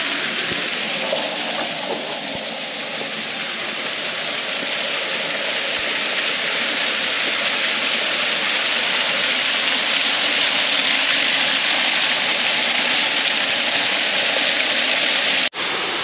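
Waterfall: a steady rush of falling water, growing a little louder about halfway through.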